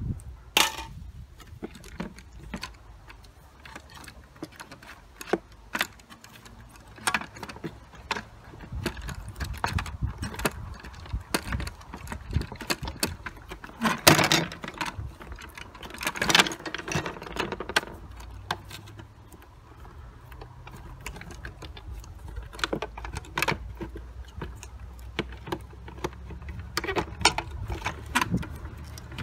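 Plastic housing of a Hoover WindTunnel Air Pro upright vacuum being wiggled and pried apart by hand: irregular clicks, knocks and rattles, with two louder clatters about halfway through. A low rumble runs underneath.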